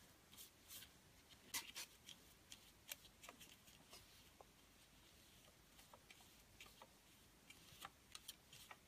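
Faint, irregular scratching and light ticks of a paintbrush spreading matte medium over a folded paper print, against near silence.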